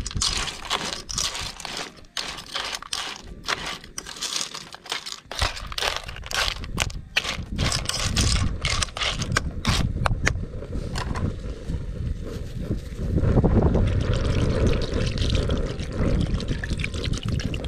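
Water poured from a plastic bottle into a pot of crabs and vegetables, splashing and trickling over the shells. Sharp clicks and clatter through the first half, and a louder, denser low rush of pouring from about two-thirds of the way in.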